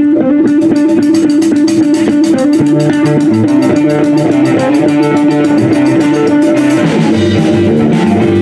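A live rock band playing a song's instrumental intro on electric guitar and bass guitar, with a steady beat coming in about half a second in.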